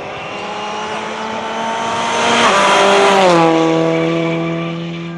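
Rally car passing at speed, its engine note rising in loudness to a peak about three seconds in, then dropping in pitch as it goes by and fading away.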